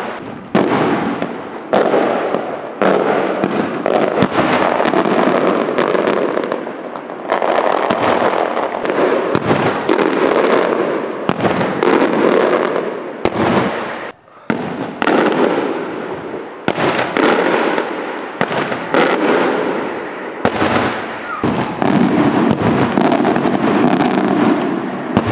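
Aerial fireworks display: a loud, dense run of bangs in quick succession, each with an echoing tail. The bangs break off for a moment about halfway through.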